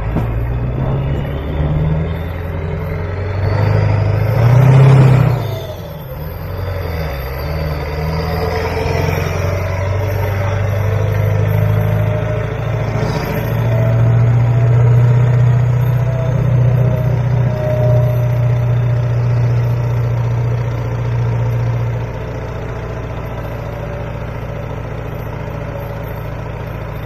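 Ford 7.3 Powerstroke turbo-diesel V8 pickup driving under load while towing a mini excavator on a trailer, heard from the truck bed with road and wind noise. An oncoming vehicle passes loudly about five seconds in, and the engine note drops about 22 seconds in as the truck eases off.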